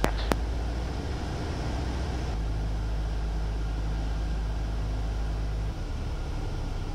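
Cockpit noise of a single-engine Grumman Tiger on short final: a steady low engine drone. A sharp click comes just after the start, at the end of a radio call. The low drone shifts about two seconds in and again near six seconds.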